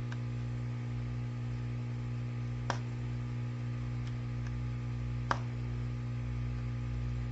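Small sharp clicks of a pry tool working the glued screen of a smartphone, a few scattered ticks, the loudest about two and a half and five seconds in, over a steady low electrical hum.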